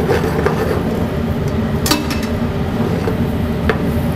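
Metal sauté pan being shaken and tossed on a gas range to coat broccoli in melted butter, knocking and sliding on the burner grate. Two sharp metal clinks come about two seconds in and near the end, over a steady low rumble.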